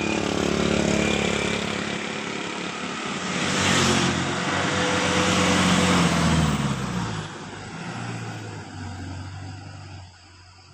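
Heavy road vehicle passing close by. Its engine drone drops in pitch as it goes past, with a rush of tyre and wind noise at its closest about four seconds in, then fades away.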